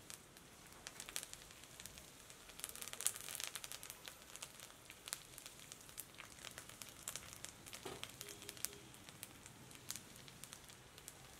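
Cooking on the heat, crackling and popping: many scattered sharp pops over a low hiss, thickest from about two and a half to four seconds in.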